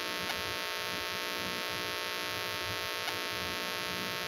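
Steady electrical mains hum with a buzzy edge, made of many evenly spaced tones. Two faint clicks sound, one just after the start and one about three seconds in.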